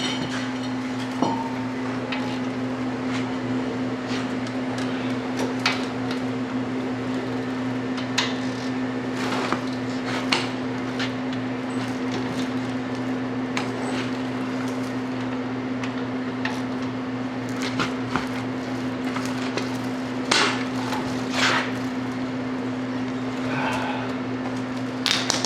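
Steady hum of a shop heater fan, with scattered short metallic knocks and clinks of hand tools at work on the front hub assembly.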